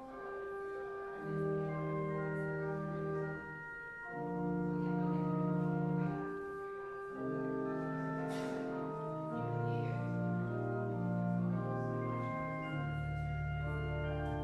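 Organ music: slow, held chords over deep bass notes, the chords changing every second or two.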